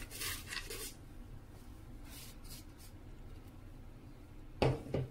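Fine ground rava powder being poured and shaken out of a plastic mixer-grinder jar into a bowl with a soft hiss, then fingers rubbing and pressing through the powder. Near the end come two short dull thumps, the loudest sounds.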